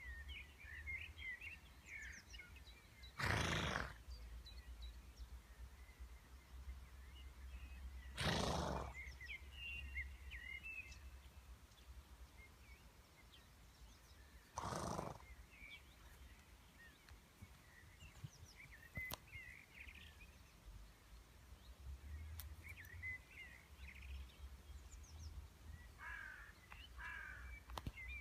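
A horse blowing out hard through its nostrils three times, each a short snort about half a second long, some five to six seconds apart: the snort of a horse greeting someone. Faint bird chirps go on throughout.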